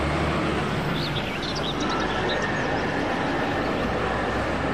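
Street traffic: the engine of a big road vehicle, a tow truck or a double-decker bus, runs over steady road noise, and its low note drops away after about a second and a half. Birds chirp from about a second in.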